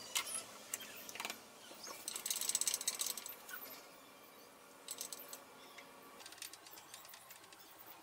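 Light metallic clicks and rattles from a dial indicator on its jointed holder being fitted and set against a plate on a milling machine, with a quick run of fine rattling clicks about two seconds in. The machine itself is not running.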